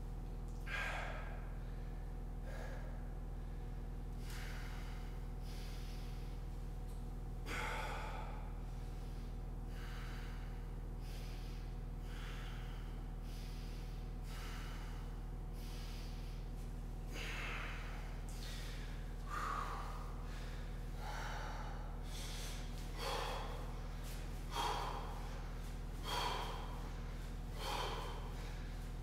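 A man breathing hard from exertion, with sharp puffs of breath every few seconds that come faster and louder near the end, over a steady low hum.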